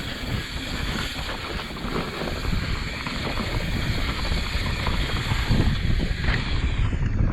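Wind rushing over the microphone and a mountain bike running fast down a dry dirt trail, with many small knocks and rattles over the bumps.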